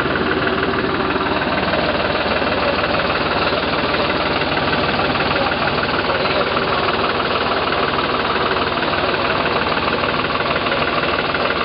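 Tractor's diesel engine idling steadily, a continuous even chugging.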